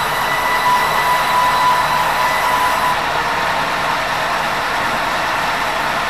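Sawmill band saw running and cutting meranti timber: a loud, steady machine noise with a high whine that is strongest during the first half.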